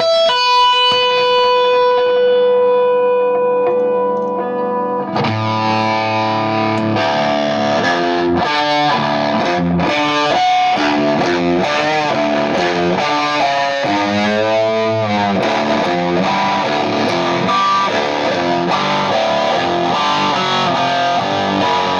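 Electric guitar played through a Vintage Fuzz pedal into a clean amp channel. A single note sustains for about five seconds, then gives way to a busy run of notes, with a wavering bent note a little past the middle.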